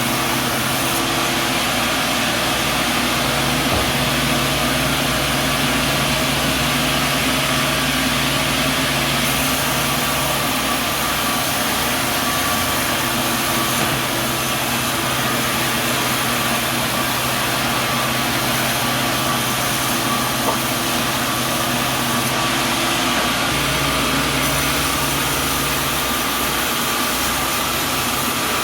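Sawmill machinery running steadily: a constant mechanical drone with steady hum tones that shift slightly in pitch twice.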